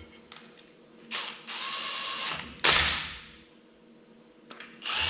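Cordless power driver spinning in the two M6 bolts that hold a clutch slave cylinder. It runs twice: a whir about a second in that ends in a louder burst as the bolt seats, then a second run starting near the end.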